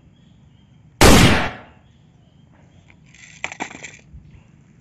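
A single loud gunshot about a second in, sharp at the start and dying away over about half a second. A few light clicks and rattles follow near the end.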